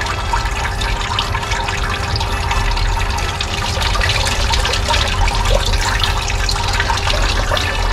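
Water circulating and splashing steadily in a 12 V blue-bowl gold concentrator, over the constant hum of its small electric pump, while wet sand is fed in for washing out fine gold.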